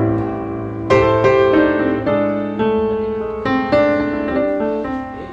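Background music played on piano, its chords and notes struck and left to ring.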